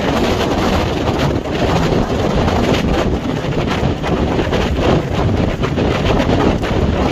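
Hurricane wind buffeting the microphone: a loud, rough rush of noise that swells and dips with the gusts, with a heavy low rumble.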